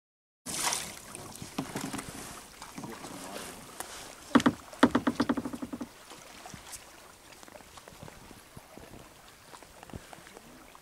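Kayak paddling on a lake: the paddle dips and splashes, and water laps against the hull. About four seconds in comes the loudest sound, a rapid buzzy pulsed sound that lasts under two seconds.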